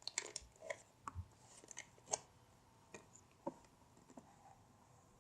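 Faint handling noises from slime being worked into a toy mold by hand: scattered small clicks and taps with soft rubbing, at irregular intervals.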